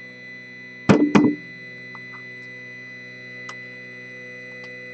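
Weedo Tina 2 3D printer powered and idle, a steady hum with several held tones from its fans and electronics. A brief loud burst comes about a second in, and there are two faint ticks later.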